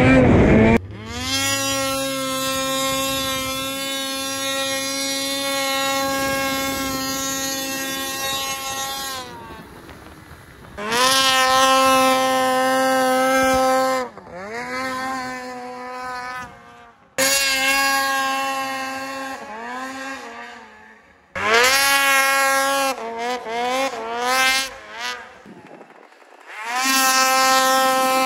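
Snowmobile engine revving hard and holding high revs as the sled is pulled up into wheelies, in about five separate runs. Each run rises quickly in pitch to a steady high note, holds for a few seconds, then falls away; one run near the end wavers as the throttle is worked on and off.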